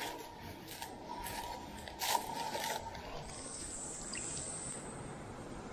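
Dry leaf litter crunching and rustling underfoot in a few sharp crackles, the loudest about two seconds in, over the steady wash of a small creek. After about three seconds only the creek's running water remains.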